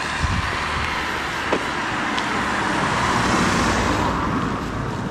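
A car driving past: the tyre and engine noise builds, peaks about three seconds in, and fades toward the end.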